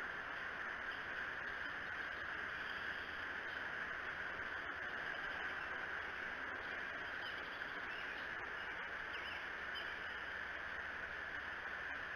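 Steady outdoor background hiss from a nest cam's microphone, with a few faint, high bird chirps in the second half.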